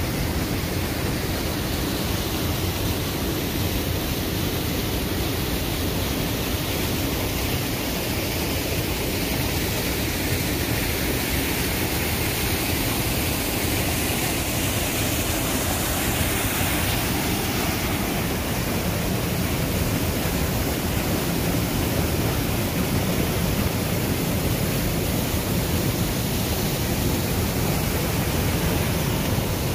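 Steady rush of river water pouring over rocks in rapids and a small cascade.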